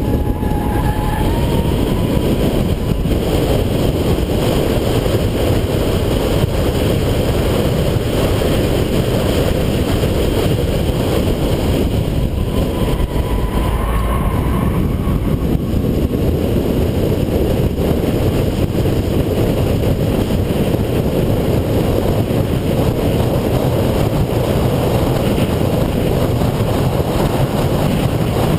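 Steady, loud in-cabin rumble of a 2008 Subaru Impreza 2.5i running on track: its 2.5-litre flat-four engine mixed with heavy road and tyre noise.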